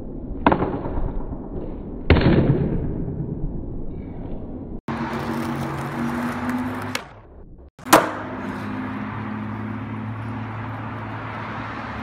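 Skateboard on concrete: the deck and wheels smack down sharply about half a second in and again around two seconds, each followed by the wheels rolling on rough pavement. Later comes steady rolling over a low hum, and another sharp snap of the board near eight seconds.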